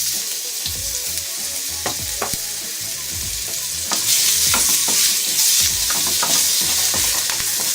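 Sliced onion sizzling in hot oil in a pan while being stirred, with several short scrapes of the spoon against the pan. The sizzle gets louder about halfway through.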